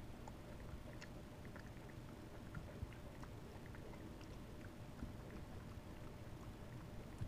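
Java macaque chewing and smacking her lips while eating soup: faint, scattered small wet clicks over a low background rumble.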